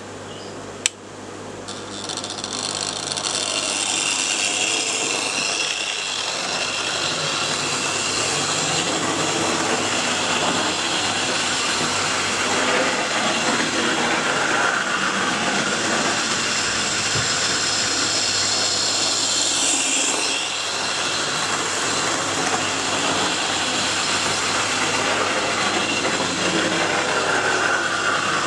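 Hornby Dublo 0-6-0 tank locomotive running on metal model railway track with coaches behind: the small electric motor whirs and the wheels rattle on the rails. A sharp click comes about a second in, then the running noise builds over a few seconds and stays steady.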